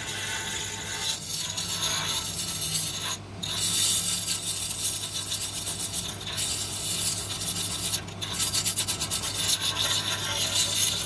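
Angle grinder with a grinding disc grinding cast iron inside a tractor transmission housing: a steady hiss of disc on metal over the motor's hum. The hiss briefly drops away about three, six and eight seconds in.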